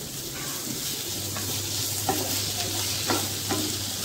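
Sliced onions with ginger-garlic paste sizzling in hot oil in a non-stick frying pan, sautéing toward golden brown, while a wooden spatula stirs them with a few short scrapes against the pan.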